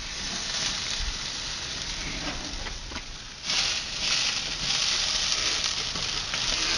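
Steaks sizzling and crackling on a hot grill. About three and a half seconds in, a louder hiss starts and holds, fitting water from a spray bottle hitting the hot coals and ashes to tame a flare-up.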